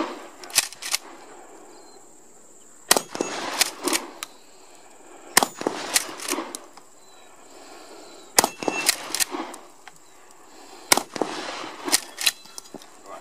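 Pump-action shotgun fired repeatedly, a sharp shot roughly every two and a half to three seconds, each shot followed by a few quicker clacks as the pump is worked.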